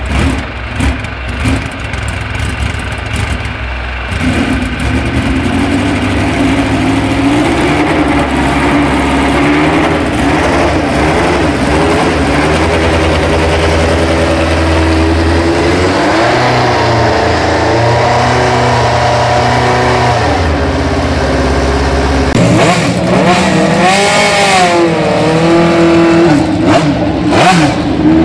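Life F35's 3.5-litre W12 Formula One engine, with three banks of four cylinders, running and being revved repeatedly. Its pitch rises and falls over a steady low rumble.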